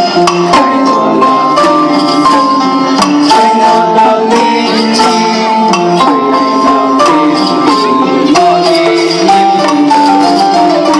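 Traditional-style music playing: a melody of held notes stepping up and down over regular drum strikes.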